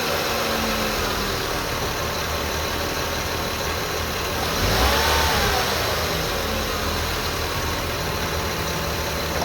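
A 2002 Lexus IS300's 3.0-litre straight-six engine idling with a steady high whine, then briefly revved and falling back to idle about five seconds in. The whine survived a new timing belt, water pump, seals and VVT-i gear; the owner wonders whether it is the oil pump, and the alternator is another suspect.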